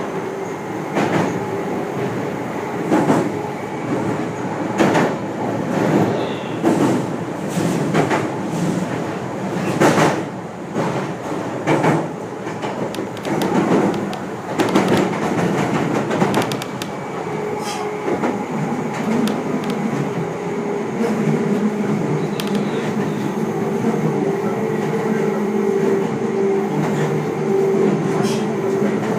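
Meitetsu electric limited express running, heard from inside the carriage: the wheels knock sharply over rail joints and points about once a second through the first half. After that it settles into a steady running rumble with a held humming tone.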